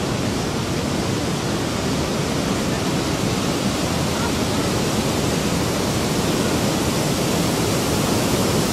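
Steady roar of tsunami surf, a broad wall of white water breaking and surging in across the shore, growing slightly louder toward the end.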